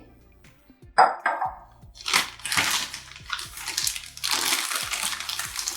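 A sharp knock about a second in, then a plastic piping bag rustling and crinkling in repeated bursts as it is handled and filled with meringue mixture.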